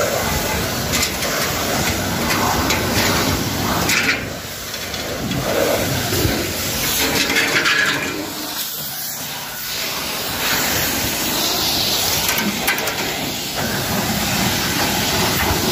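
High-pressure washer jet spraying water in a steady hiss, with a few knocks as the steel access platform is pushed along.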